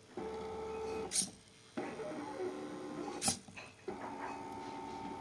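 Stepper motors of an AxiDraw-style CNC pen plotter whining as it draws, the tone shifting pitch from one move to the next. It pauses briefly between moves, and there are sharp clicks about a second in and past the three-second mark.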